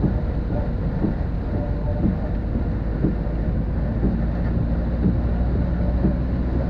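Steady low rumbling noise of a storm, with many small irregular taps over it.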